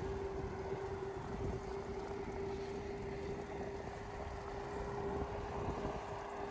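Wind buffeting the microphone of a moving bicycle, a low uneven rumble, with a steady hum held at one pitch.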